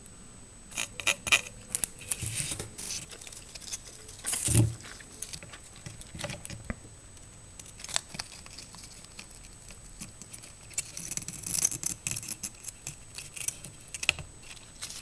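Soldering iron tip scraping along the pins of a surface-mount chip and pressing copper desoldering braid onto them, making irregular crackling, small clicks and scratching as the solder is heated and wicked up. A louder bump comes about four and a half seconds in.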